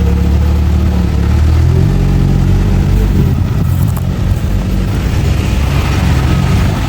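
Bulldozer's diesel engine running loud and steady under load, its note changing about two seconds in and then running rougher.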